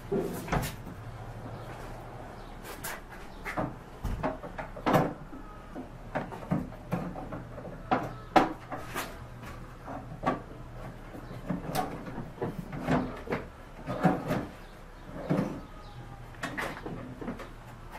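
Solid maple drawers being pushed into and fitted in a black walnut credenza: a string of irregular wooden knocks and bumps as the drawers are set on their runners and adjusted.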